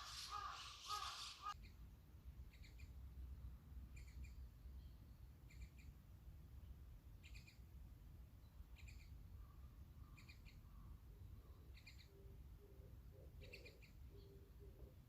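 Faint birdsong over a low steady rumble: a small bird repeats a short, high double chirp about every second and a half. A louder harsh call fills the first second and a half, and from about twelve seconds in a second bird joins with low, short repeated notes.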